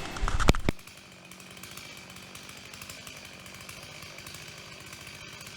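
A sharp knock about half a second in, then a chainsaw running steadily at a low, even level until it cuts off suddenly near the end.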